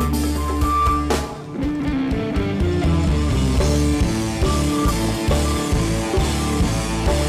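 Rock music with guitar and drums over a steady beat, dipping briefly about a second in.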